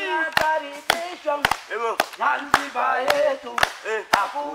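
Voices singing a chant with sharp handclaps, about one clap every half second.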